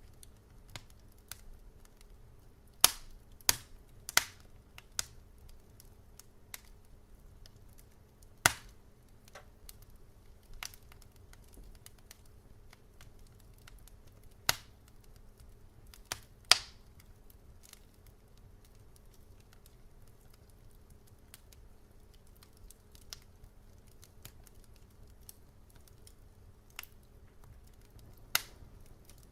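Wood fire crackling: irregular sharp pops and snaps, a dozen or so louder ones among many small ticks, over a faint low steady background.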